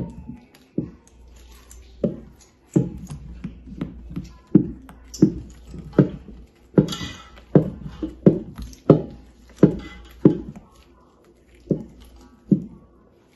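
Wooden spoon stirring a large batch of thick fruit cake batter in a big stainless steel bowl. Each stroke gives a short, dull, wet knock, about one every two-thirds of a second, with a brief pause near the end.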